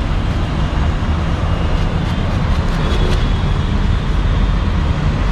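A steady low rumble of street background noise, with a few faint clicks around the middle as a knife slices through watermelon.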